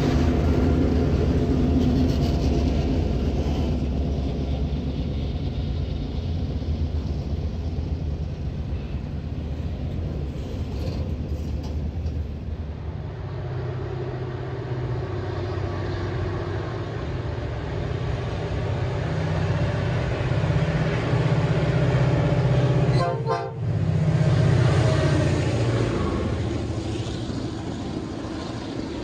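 Diesel-hauled freight trains passing close by: a GM-class locomotive's engine rumble and its hopper wagons rolling past, then a second freight train running through a station, with its horn sounding.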